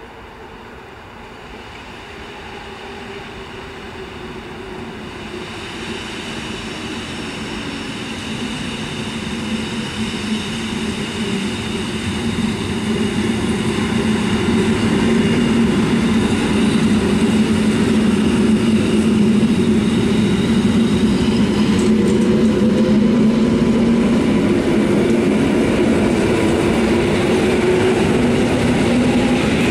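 SKM Trójmiasto electric multiple unit approaching along the track and passing close by. It grows steadily louder for about fifteen seconds, then runs loud and steady, with a low hum over the rumble of wheels on the rails.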